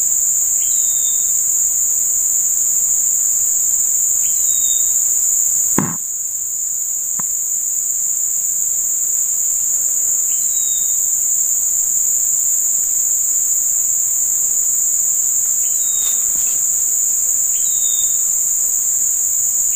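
Steady, shrill chorus of insects in the riverside woods, with short high chirps repeating every couple of seconds. A single knock about six seconds in.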